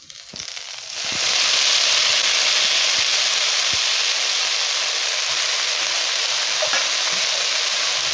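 Chopped red amaranth greens sizzling in hot oil in a wok: a hiss that swells sharply about a second in as the greens hit the oil, then holds steady.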